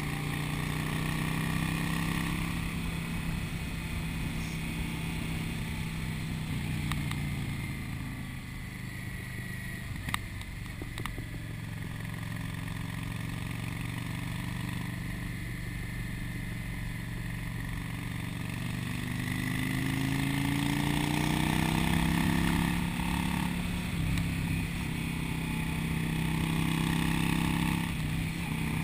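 Cruiser motorcycle engine running under way from the rider's seat, with wind rush. The engine eases off about a quarter of the way in, then pulls up with rising pitch about two-thirds in and holds steady. A couple of sharp clicks come about a third of the way in.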